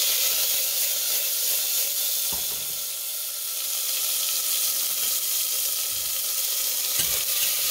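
Chopped tomatoes sizzling in hot oil with ginger and garlic in a stainless steel pressure cooker: a steady frying hiss, with a light knock about two seconds in and another near the end.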